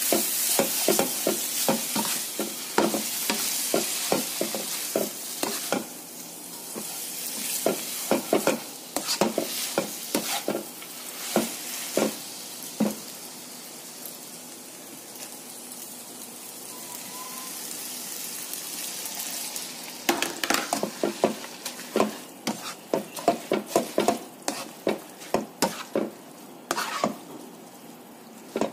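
Rice vermicelli frying in a wok, with a spatula scraping and clacking against the pan as the noodles are tossed. The sizzle is strongest at the start and fades, there is a quieter spell of steady hiss in the middle, and then a quick run of clacks near the end.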